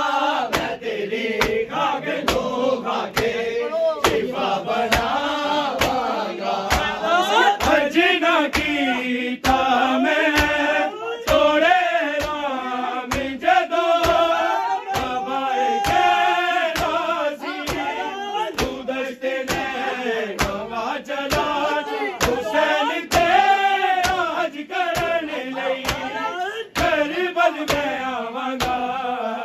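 Men chanting a noha, a Shia mourning lament, with a lead voice and a group joining in. Sharp rhythmic strikes, about two a second, keep time throughout, typical of matam: hands beating on chests.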